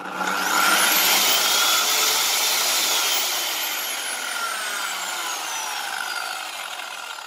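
Hychika CS-190C corded circular saw running free at its top speed setting. The motor and blade spin up gradually with a rising whine over about a second and a half, which shows the saw has a soft start. From about three seconds in, the blade coasts down with a slowly falling whine.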